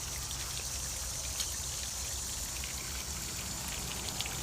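Water from a garden pond's fountain splashing and trickling steadily, over a low steady hum.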